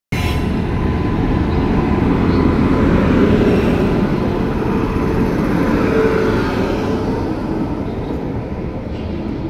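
An Indian Railways WAP-7 electric locomotive and its passenger coaches run past along the platform as the express arrives: a loud, steady rumble of wheels on rail, with a faint steady whine. The sound eases gradually in the last few seconds.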